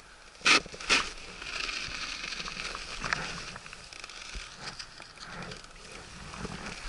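Snowkite rider's edges scraping and hissing over icy spring slush, with scattered small crackles. Two short, sharp rasps about half a second apart come near the start.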